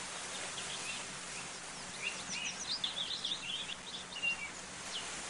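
Faint high-pitched yelping of a young puppy, a cluster of short squeals mostly in the middle of the stretch over steady outdoor background hiss. It is a timid puppy that cannot follow the litter and is crying out.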